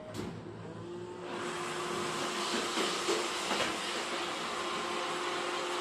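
Roomba robot vacuum's motor and brushes starting up about a second in, then running steadily with a constant hum.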